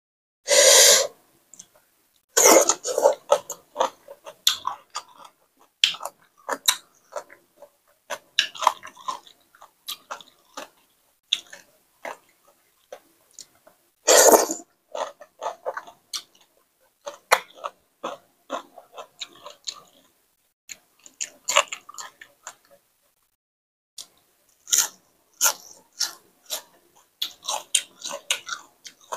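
Wet chewing and lip-smacking of a spicy papaya salad with raw salmon, eaten by hand, made of many short clicks and crackles. A loud sucking slurp comes about a second in and another about halfway through as she sucks her fingers.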